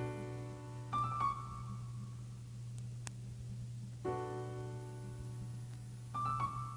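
Instrumental music before the vocal comes in: keyboard chords held over a steady low bass note. New chords are struck about a second in, again near four seconds and near six seconds, each time with a short higher note on top.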